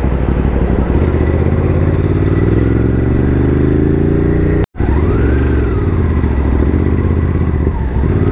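Ducati Hypermotard 950's L-twin engine running on the road, its pitch climbing steadily for a few seconds as it accelerates. The sound cuts out for an instant a little before halfway, then the engine carries on at a wavering pitch.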